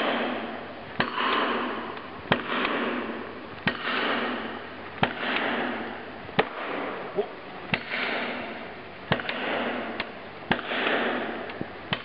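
Axe blows struck at the base of a large tree, about one every second and a half, nine in all, each sharp crack trailing off in echo.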